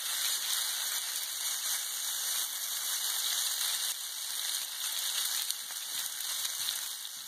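Cooked pasta sizzling in oil on a hot flat-top griddle, a steady hiss that eases slightly near the end.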